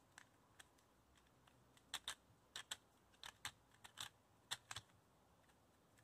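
2x2 gear cube (Gear Shift) being turned by hand: faint, irregular plastic clicks as its lubricated faces and gears turn, some in quick pairs.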